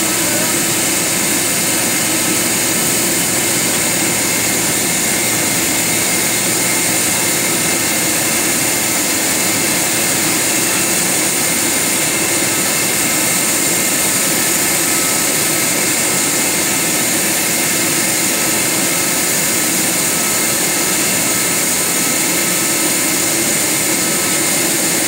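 Steady jet turbine whine and rush from a Boeing 737 Business Jet during pushback by a tug: a constant hiss with thin high whining tones, unchanging in pitch and level.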